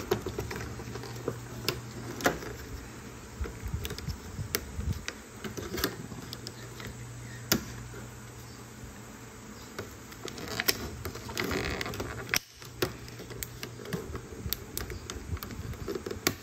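Scissors snipping through clear plastic toy packaging, and the thin plastic crinkling as it is handled: scattered sharp clicks and crackles, with a denser rustle about eleven seconds in, over a steady low hum.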